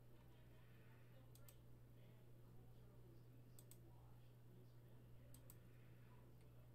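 Near silence with a low steady hum, broken by three faint double-clicks of a computer mouse about two seconds apart.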